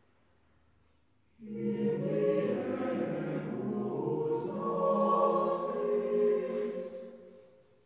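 Mixed SATB chamber choir singing a cappella in Latin. After about a second and a half of near silence, the voices come in together on a sustained chord and move through held chords, with three short hissing consonants. The sound dies away near the end.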